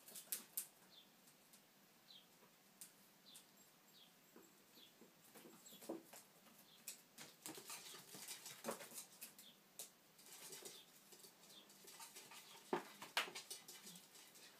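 Faint, scattered tapping, scratching and rustling of prairie dogs' claws on wood and loose paper as they scurry about, the loudest taps near the end, with a few faint short high chirps in the first few seconds.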